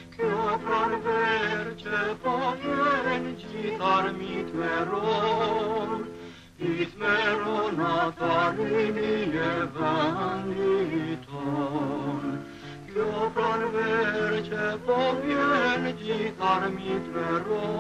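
A man sings a slow song with a wavering vibrato, accompanying himself on an acoustic guitar. He pauses briefly between phrases about six and eleven seconds in.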